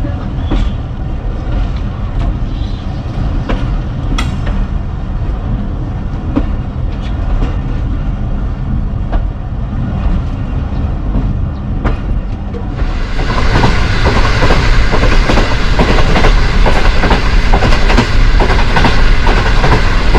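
Passenger train rolling along the track: a steady low rumble with scattered wheel clicks. About 13 seconds in, it turns suddenly louder and brighter, with a rapid clatter of wheels over the rails.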